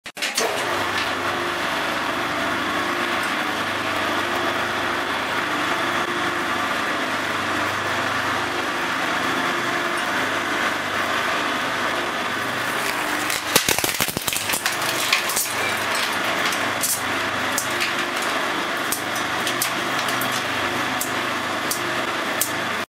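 Twin-shaft shredder running with a steady motor hum. About halfway through, a plastic doll is fed in and crunched and cracked between the cutter discs for a couple of seconds, followed by scattered snaps as the pieces are chewed up.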